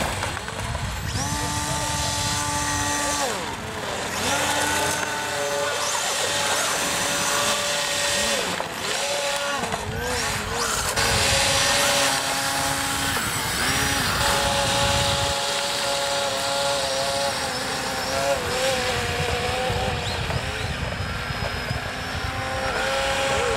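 Radio-controlled airboats' propeller motors whining, the pitch holding steady for a second or two, then sliding up and down as the throttle changes, over a low rumble.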